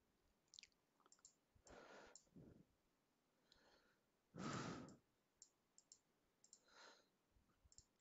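Near silence with faint, scattered computer mouse clicks as text is selected and tabs are switched. There are two soft breaths; the louder one comes about halfway through.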